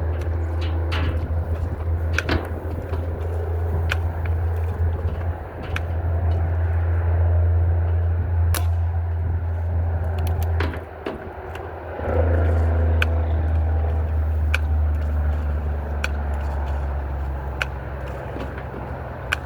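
Remington Airmaster 77 pump-action BB rifle being pumped and fired: a series of separate sharp clicks and snaps, a second or more apart, over a steady low hum.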